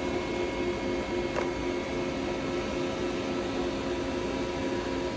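Steady mechanical hum of running shop machinery, with a constant whine of several fixed tones over a hissing background. A faint click about a second and a half in.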